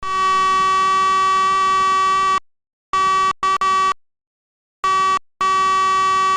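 Electronic buzzer of a homemade optical-mouse alarm going off: one steady, high, harsh tone that starts and stops abruptly. A long burst of about two and a half seconds comes first, then several shorter bursts broken by gaps.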